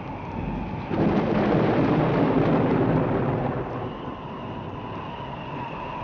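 Steam train running on the rails: a loud rushing rumble that swells about a second in and eases off after about three and a half seconds, with a steady high ringing tone in the later part.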